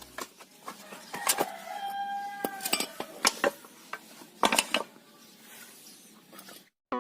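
Scattered sharp clinks and knocks, as of tools and metal parts being handled during work, with a brief squeaky tone about a second in.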